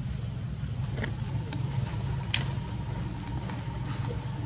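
Insects outdoors making a steady, high-pitched drone over a low rumble. A few sharp clicks come through, the loudest about two and a half seconds in.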